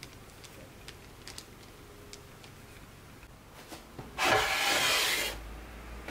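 A metal baking tray scraped across a countertop as it is slid away, a rough scrape lasting about a second, starting about four seconds in. Before that come a few faint light ticks.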